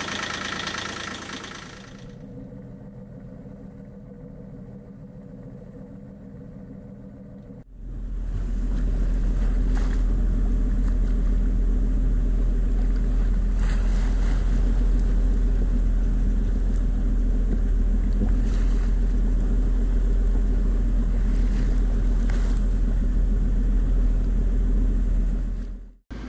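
A boat's engine running at idle, charging the batteries through a newly fitted alternator belt, fading after about two seconds. From about eight seconds in, a loud steady rush of wind rumbling on the microphone with sea water around a sailing catamaran, which cuts off suddenly near the end.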